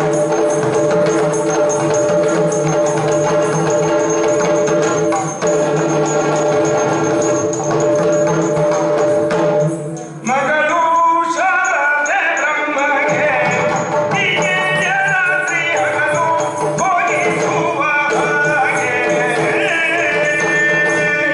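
Yakshagana music: a steady drone with percussion strokes and jingling. About ten seconds in, a gliding melodic line, likely the singer's voice, begins over the accompaniment.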